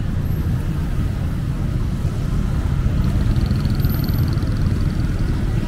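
Road traffic passing close by: cars and motorcycles running past in a steady low rumble.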